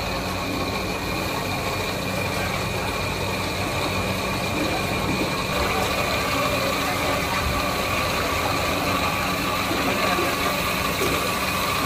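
A small motor running steadily: a constant hum over an even background noise.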